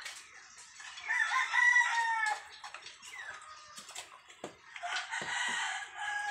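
Rooster crowing twice: a loud crow about a second in that drops in pitch at its end, then a second, quieter crow near the end.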